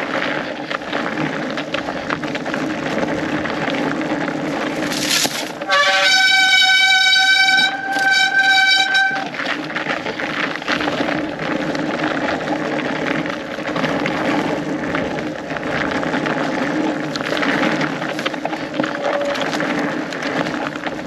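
Fat bike riding noise on a frozen snowy trail: tyre and drivetrain rattle with wind on the microphone. Two long, steady, high-pitched tones sound back to back about six seconds in, each lasting a second or two.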